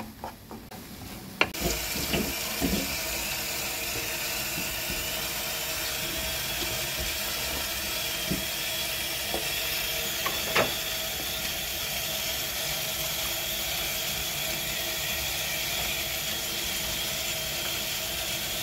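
Tap water running steadily into a stainless steel colander of fried eggplant slices in the sink, starting about a second and a half in, with a few light knocks as the slices are handled under the stream.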